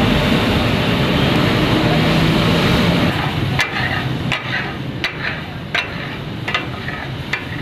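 Minced mutton sizzling in hot oil on a flat metal tawa. From about three and a half seconds in, the spatula blades strike the griddle in sharp clacks, about seven in four seconds: the chopping and mixing clatter that gives taka-tak keema its name.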